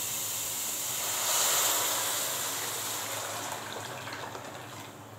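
Hot oil in a frying pan of onion and parsley sizzling loudly as grated tomato is poured in. The hiss peaks about a second and a half in, then fades as the tomato covers the pan.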